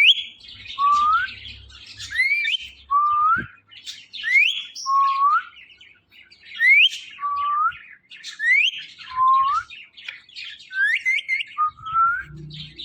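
Pet parrot whistling a repeated two-note phrase, a quick upward-sweeping high whistle followed by a lower, slightly rising whistle, about every two seconds. Near the end it gives three quick high whistles in a row.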